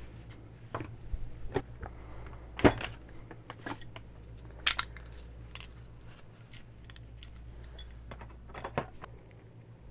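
Scattered clinks and knocks of metal parts and tools being handled on a workbench, the sharpest about a third and halfway through, over a steady low hum.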